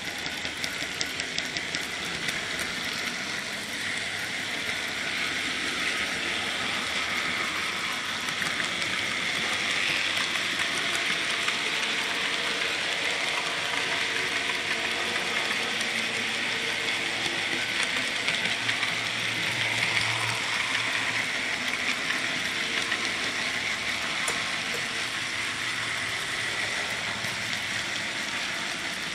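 N gauge model train running along the track, heard from a camera riding on board: a steady whirring rattle from the motor and the wheels on the rails.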